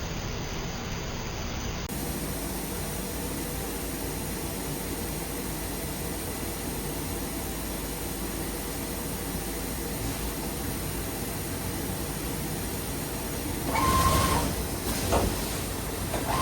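DMG Mori DMU 60 vertical machining center running, a steady mechanical hum and hiss from its drives, with a brief louder surge and a short whine near the end.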